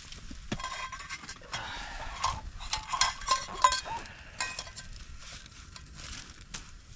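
Metal camp cup and cookware being handled, a run of light clinks and knocks with a brief metallic ring, busiest in the first few seconds.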